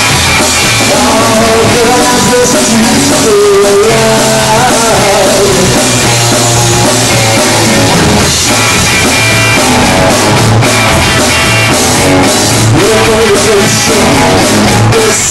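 Live rock band playing loud, with a male singer over electric guitar, bass guitar and drum kit.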